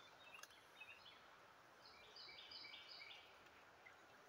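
Near silence: faint outdoor ambience with a steady hiss, and a bird singing a short run of high notes about halfway through.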